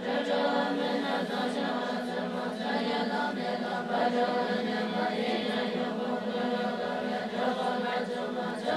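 Tibetan Buddhist nuns chanting prayers together, a steady chant of many voices held close to one pitch.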